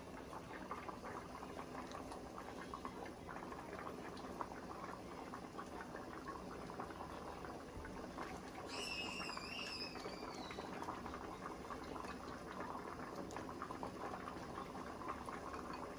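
Pot of pepper soup bubbling on a gas burner while a ladle scoops soup and pours it into a bowl, with many small bubbling ticks. About nine seconds in, a brief high wavering voice or whistle.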